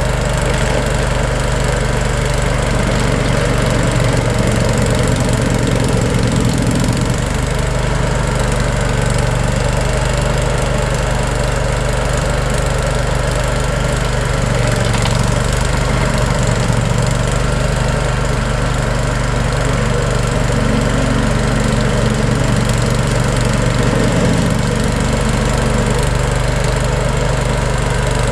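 Vermeer SC252 stump grinder's engine running steadily at constant speed, with its low hum swelling slightly a few times.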